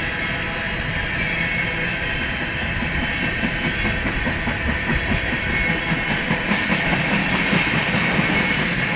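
BNSF freight train cars rolling past at speed, wheels clicking over the rail joints, with a faint steady high-pitched wheel squeal. The clicks come a few times a second and grow a little louder from about a third of the way in.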